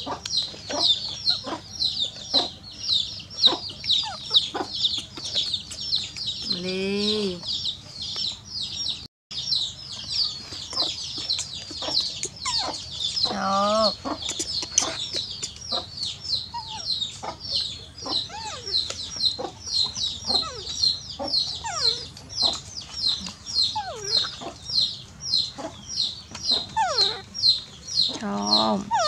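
Chicks peeping nonstop, a rapid, even run of short high chirps at about three or four a second. Three longer, lower calls fall in pitch over it, once about a quarter of the way in, once near the middle and once at the very end.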